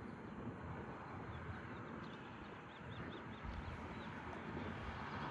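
A small bird calling a quick run of five or six short, arched chirps about halfway through, over a steady low outdoor rumble.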